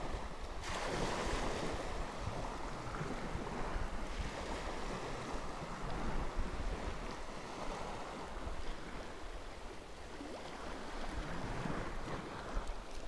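Sea water washing and lapping at the shallow shoreline in uneven surges, the first swelling up about a second in, with wind rumbling on the microphone.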